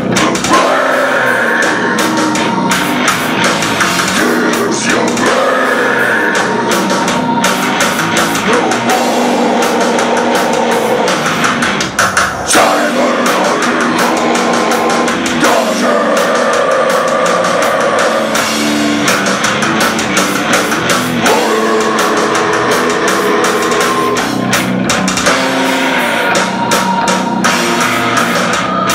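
Rock band playing live: electric guitars and bass over a drum kit, loud and dense, the chords changing every few seconds.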